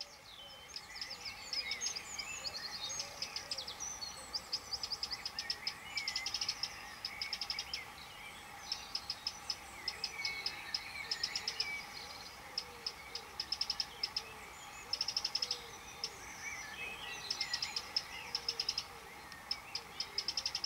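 Songbirds singing: repeated quick, high trilled phrases about a second long, with scattered chirps between them, over a faint steady hum.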